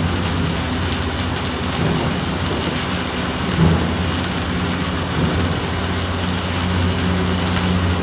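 Electric arc welding: a steady crackle of the arc over a low electrical hum, with a brief louder spot about halfway through.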